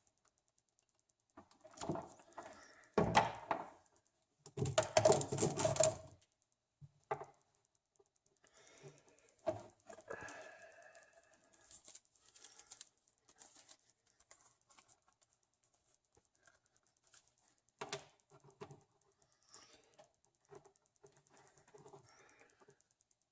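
Wire cutters snipping through a hair curler's power cord, with clicks and clatter as the cord and tool are handled. The loudest clusters of clicks come in the first few seconds, and fainter scattered clicks and rustling follow.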